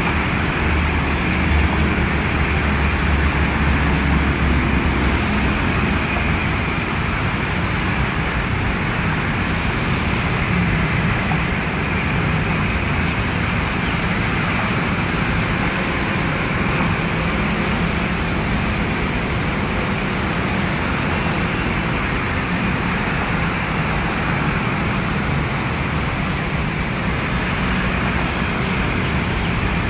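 Steady road traffic from a busy multi-lane city avenue: a continuous hum of cars, motorbikes and buses, with a heavier low rumble in the first few seconds.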